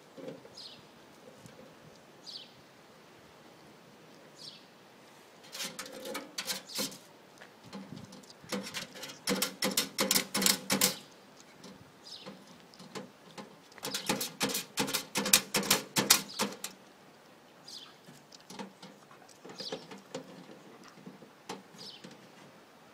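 Dog scratching and pawing at a metal wall-mounted post box, three bouts of rapid clattering and rattling.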